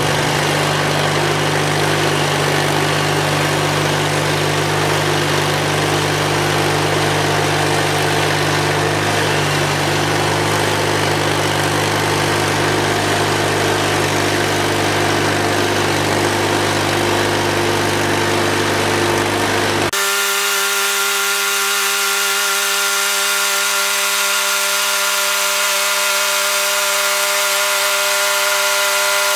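Bandsaw sawmill's engine running steadily. About two-thirds of the way through the sound changes abruptly: the low rumble drops away, leaving a steady, higher hum.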